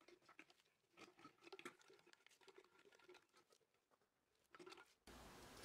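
Near silence with faint scattered ticks and scrapes from a wooden spoon working sugar in a glass jar of lemon juice. A faint steady hiss comes in near the end.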